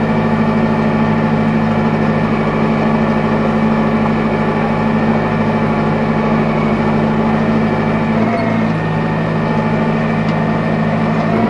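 Tractor engine running steadily under load while pulling a Kuhn GA 13131 four-rotor rake; its note shifts slightly about eight seconds in.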